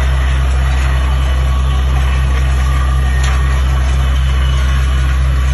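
DTHR-300 truck-mounted down-the-hole water well drilling rig running steadily while drilling: a heavy engine drone under the hiss and splatter of compressed air blowing water and cuttings up out of the borehole.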